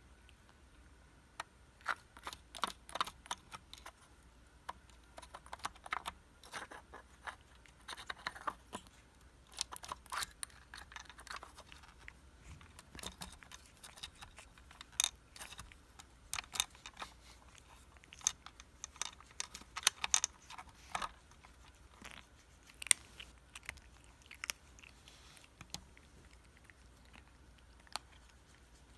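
Green plastic puzzle toy clicking and rattling as a kitten works at its domed cups and sliding disc: irregular clusters of short plastic clicks and knocks with pauses between.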